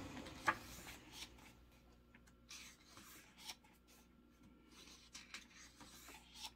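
Glossy photobook pages being handled and turned by hand: faint paper rustles and soft taps, with one sharper tick about half a second in.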